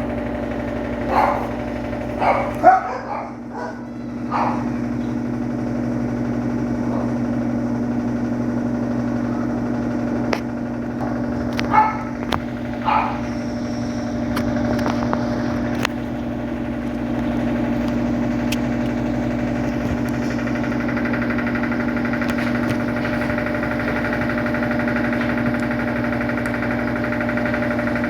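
Electrolux Turbo Economia 12 kg (LTE12) washing machine running its final spin at 720 RPM, a steady motor hum. A higher whine joins about two-thirds of the way through, and a few brief sharp sounds stand out near the start and around twelve seconds in.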